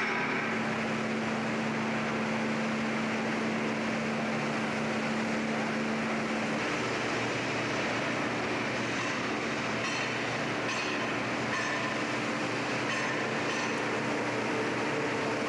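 Steady industrial machinery din of a railway locomotive repair shop, with a constant mechanical hum. The hum changes pitch about halfway through, and a few short clinks come in the second half.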